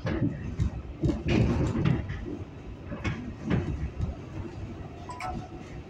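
R142A subway car pulling out of a station, heard from inside the car: a steady low rumble broken by several loud clunks and rattles, the loudest about a second in.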